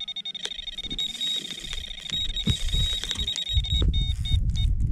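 Electronic carp bite alarm giving a continuous high-pitched tone as line is pulled off during a carp run, the sign of a fish taking the bait. About four seconds in, the tone breaks into quick separate beeps, and a low rumble comes in as the rod is lifted off the alarm.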